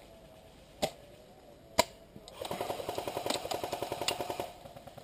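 Airsoft guns firing: two single sharp shots about a second apart, then a rapid full-auto burst lasting about two seconds that stops abruptly.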